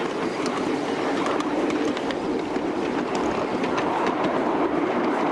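Live-steam miniature ridable train running along its track: a steady rolling rumble of the cars' wheels on the rails, with scattered clicks over the rail joints.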